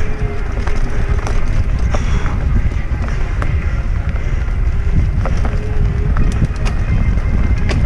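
Wind buffeting the camera microphone over the rumble of a mountain bike rolling fast down a dirt trail, with scattered sharp clicks and rattles as the tyres and frame hit roots, rocks and leaf litter.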